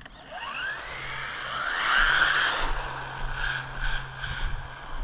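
Electric motor of an MJX Hyper Go 1/14-scale 4WD RC truck whining up in pitch as the truck accelerates, loudest about two seconds in, then holding a high wavering whine that fades over the last couple of seconds as it drives on.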